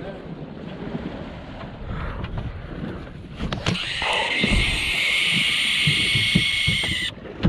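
Baitcasting reel's spool spinning fast as a lure is cast: a steady high whir that starts about halfway through, runs about three seconds and cuts off suddenly near the end. Before it, wind on the microphone and a few handling bumps.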